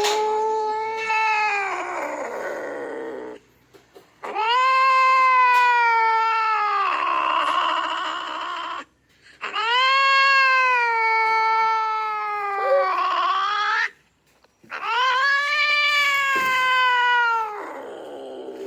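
Cat yowling in long, drawn-out, angry territorial calls: four sustained yowls of a few seconds each, with short pauses between them.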